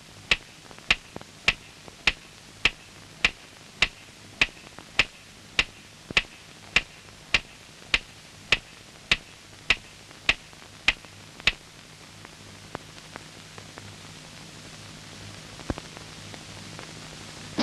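Steady, even ticking, a little under two sharp ticks a second, like a metronome beating time; it stops about two-thirds of the way through. Faint hiss follows, with a few scattered ticks.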